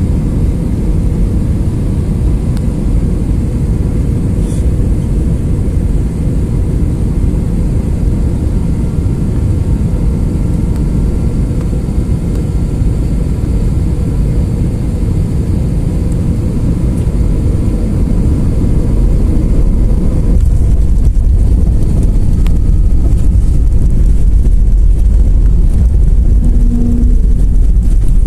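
Airbus A321 cabin noise on final approach, heard from a window seat over the wing: a steady rush of airflow and jet engine drone. It grows louder and deeper about twenty seconds in.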